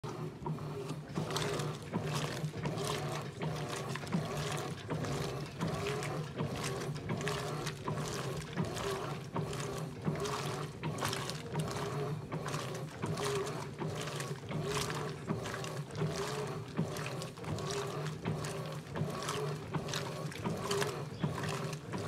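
Electrolux LBU15 top-loading washing machine agitating a soapy load: water sloshing in rhythmic surges, about two a second, as the agitator swings back and forth, over a steady motor hum.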